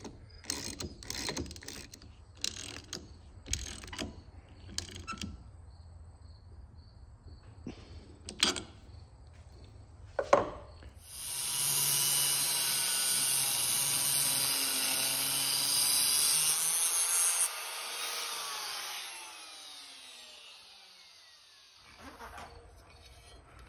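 Clicks and clinks of small hardware being handled, then an electric angle grinder with a cutting disc cutting a threaded steel stud on a metal plate for about six seconds. It switches off and winds down with a falling whine.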